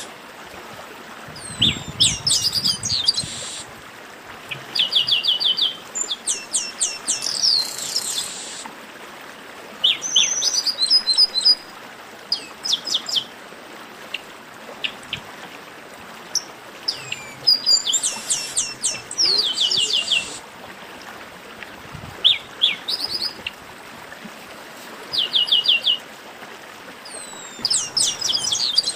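Chestnut-capped blackbird song: about ten short phrases, each a quick run of evenly spaced, sharply sweeping notes, coming every two to three seconds over a steady background hiss.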